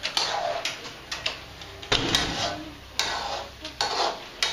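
Metal ladle clinking and scraping against a steel wok as chicken pieces are stirred, with irregular sharp knocks a fraction of a second to a second apart.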